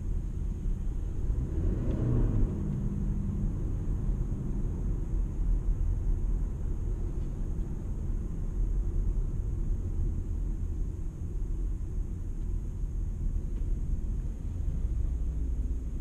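Toyota Camry Hybrid on the move: a steady low rumble of road and drivetrain noise, with a brief swell about two seconds in.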